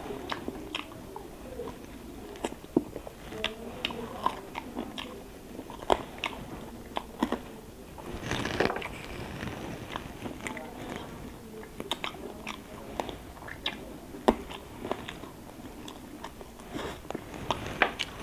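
Close chewing and biting as a man eats chicken and boiled quail eggs by hand, with sharp crunching clicks at irregular intervals and a longer noisy stretch about eight and a half seconds in.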